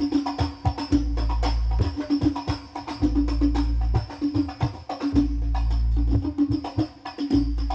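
Hadroh ensemble of rebana frame drums playing a fast, busy rhythm through a large PA sound system, with jingles and sharp slaps over long, deep bass booms that come every second or two.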